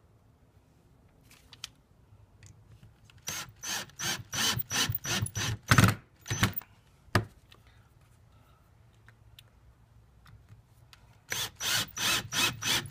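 Cordless drill driving screws through a metal Z-clip into a wooden trim board, its motor run in quick pulses about three times a second. One run lasts about three seconds, starting a few seconds in. A single click follows, and a second run begins near the end.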